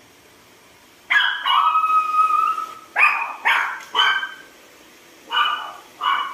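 An animal calling. About a second in comes a short cry that runs into a held, steady-pitched whine, followed by five short calls spaced roughly half a second to a second apart.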